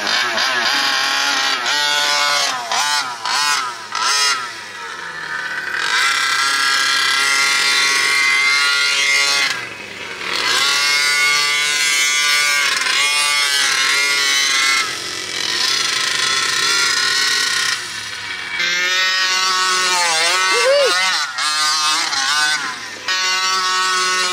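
Small two-stroke 49cc engines of 1/5-scale gas RC monster trucks revving up and easing off again and again as the trucks are driven, the pitch rising and falling with the throttle. One of the engines is new and still being broken in.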